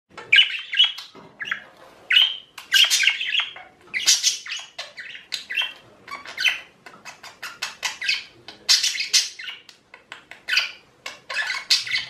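Pet budgerigars chattering and squawking: a fast, irregular stream of short, harsh, high-pitched calls, several a second.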